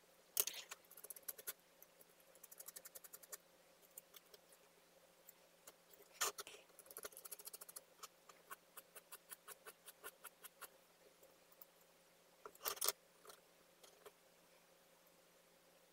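Metal palette knife clicking and scraping on a board as it works and lifts soft decorative plaster: a run of small ticks, with a few louder scrapes about half a second in, around six seconds in and a few seconds before the end.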